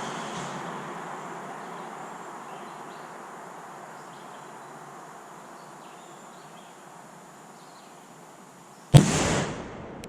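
A single sharp, loud bang about nine seconds in, with a short half-second tail, after a stretch of faint steady outdoor hiss.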